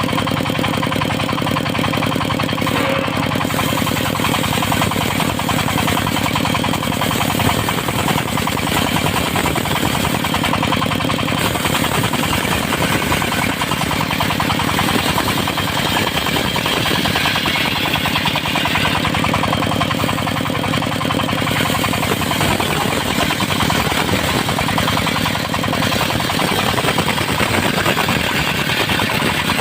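Engine-driven circular sawmill running steadily while sawing teak, the engine giving a rapid knocking beat throughout.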